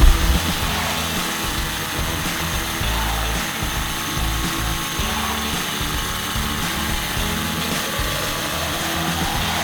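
Worx WX354 Slammer cordless hammer drill running, with background music.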